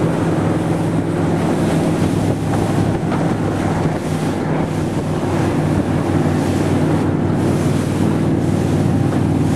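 A powerboat's 460 cubic-inch Ford big-block V8 running steadily at speed, with heavy wind noise on the microphone and rushing water from the hull.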